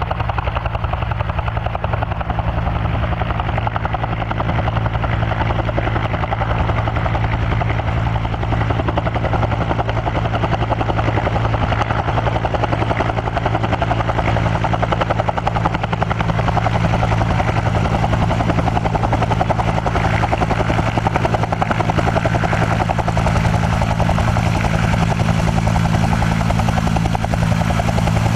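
Bell UH-1 Huey helicopter running steadily, its turbine engine and two-bladed main rotor turning at constant speed.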